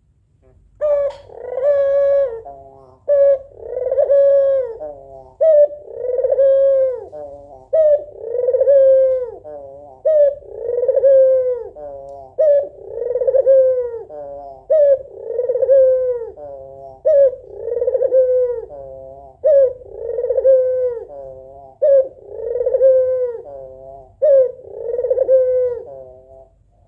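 White Barbary dove (puter), a female, cooing over and over. Each call is a short clipped note followed by a longer falling coo, repeated about every two seconds.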